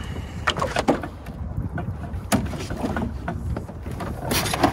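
Sounds on a small boat on the water: a steady low rumble of wind on the microphone, with scattered short knocks and splashes of handling on the boat.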